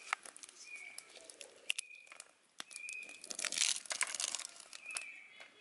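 Leaves and lamtoro pods being handled close up, with crinkling, tearing and small snapping clicks that are loudest about three and a half seconds in. A short high note repeats about once a second in the background.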